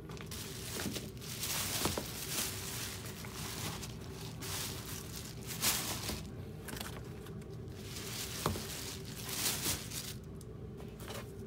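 Rustling, crinkling handling noise in irregular bursts as sneakers are picked up and moved about, with a couple of light knocks, over a steady low hum.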